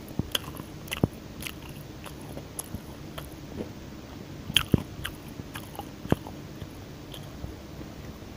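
Close-miked biting and chewing of deep-fried pandan chicken: irregular crunches and wet mouth clicks, with the loudest bites about a second in and around four and a half seconds in.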